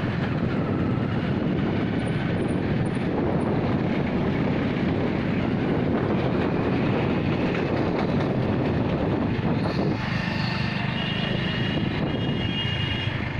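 Steady, loud vehicle rumble mixed with wind noise on the microphone as the recording moves along the road. Faint high steady tones join about ten seconds in.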